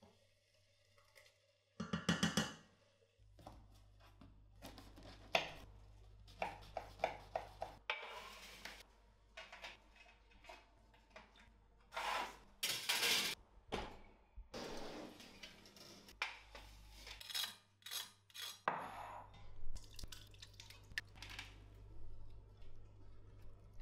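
Kitchenware being handled: a stainless steel saucepan, then a metal baking tray with bread slices set down and picked up, giving a series of clinks, knocks and short scrapes.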